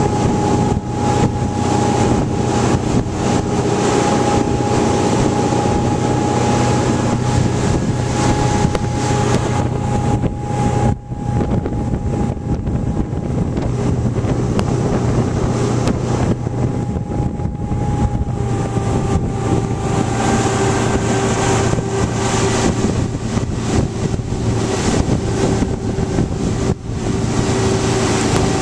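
Tow boat's engine running steadily, with wind buffeting the microphone.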